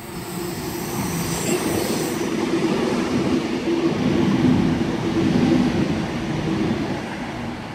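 Double-deck electric suburban passenger train running through the station at speed. Wheels on rail and a steady motor hum grow louder, are loudest about four to five seconds in, then fade as it goes away.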